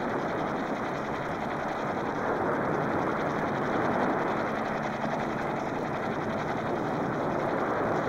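Steady rushing roar of big breaking surf, with no distinct impacts or pitch.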